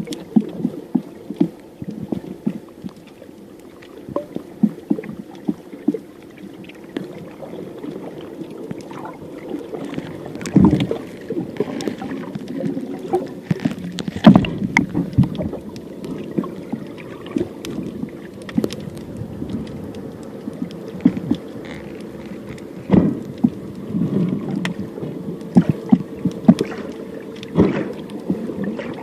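Muffled underwater sound through a camera's waterproof housing: a steady low drone with frequent clicks and knocks, and a few louder thumps.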